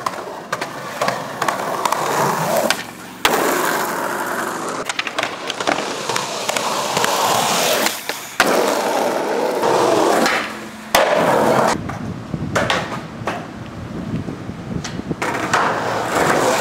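Skateboard wheels rolling hard on concrete, with sharp wooden clacks of the board's tail popping and landing. The rolling noise breaks off and changes abruptly several times.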